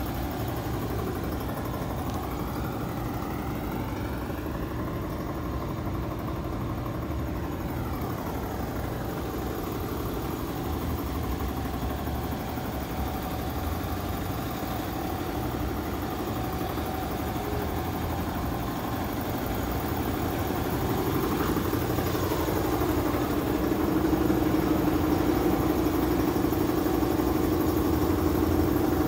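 Ford Expedition's V8 engine idling steadily, louder in the last few seconds.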